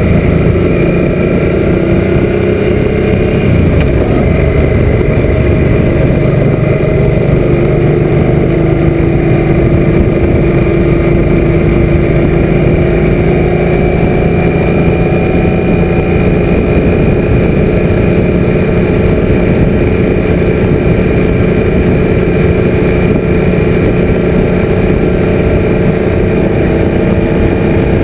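Suzuki M800 V-twin motorcycle engine running steadily at cruising speed, heard from a camera mounted on the bike, with low wind rumble on the microphone.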